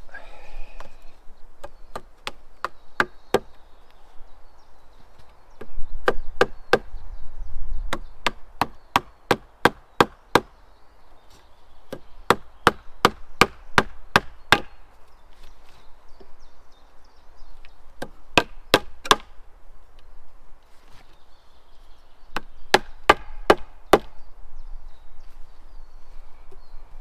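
Hammer blows on timber, in five runs of several quick strikes each at about two to three a second, with short pauses between runs, typical of driving nails into a wooden frame.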